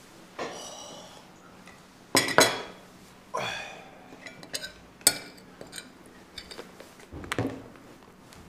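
Cutlery clinking and scraping on a plate, in a string of separate knocks and clinks, the loudest about two seconds in.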